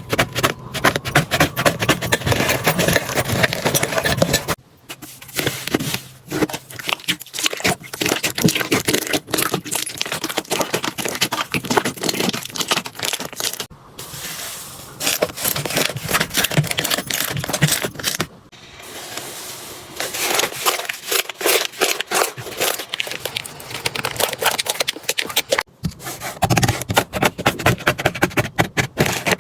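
Slime being squeezed, pressed and poked by hand: a dense run of crackles, pops and sticky scraping clicks, broken by a few short pauses.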